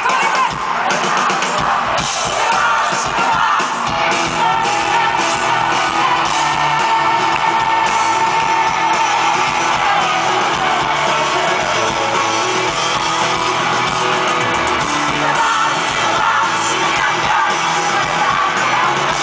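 Live pop-rock band performance heard from within a stadium crowd: a female lead singer singing over drums and electric guitar, with the crowd yelling along.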